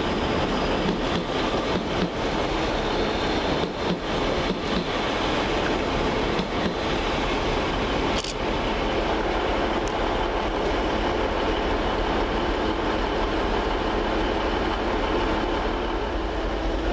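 Passenger train running through the station, a steady rumble with a run of clicks in the first few seconds and one sharp click about eight seconds in.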